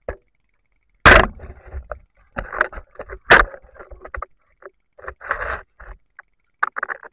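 Water movement and handling noise picked up by an underwater camera, broken by two sharp, loud knocks about two seconds apart.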